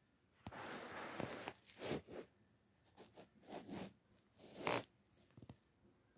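Rustling and scraping close to the microphone in a series of short rasping bursts: one longer stretch near the start, then several shorter ones, the loudest near the end.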